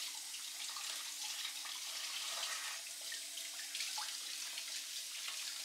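Kitchen faucet running into a stainless steel sink as hands are rinsed under the stream: a steady hiss of splashing water.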